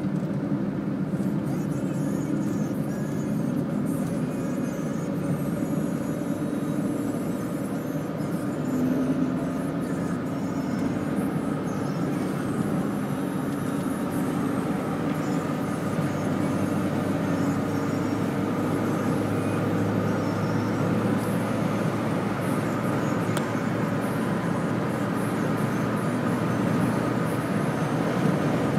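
Steady engine and tyre noise of a moving car, heard from inside the cabin, a continuous low rumble with no sudden events.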